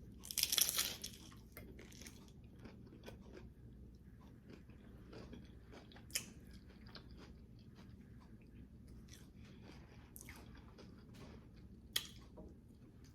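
A crunchy bite into a low-carb hard taco shell, loudest about half a second in, followed by quiet close-up chewing with a couple of short clicks.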